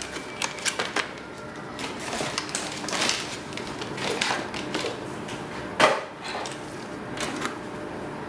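Boxes and packaging being handled and set down: scattered light clicks, knocks and rustling, with one sharper knock about six seconds in.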